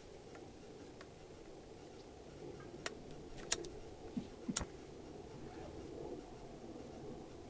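Faint handling sounds while a small alcohol stove is being lit: a few sharp clicks, about three, three and a half and four and a half seconds in, with soft knocks among them, over a low steady background.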